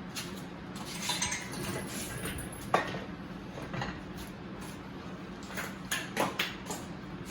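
Metal tools and engine hardware clinking and clanking during work on a small-block V8. There is one sharp clank about three seconds in and several more near the end, over a steady low hum.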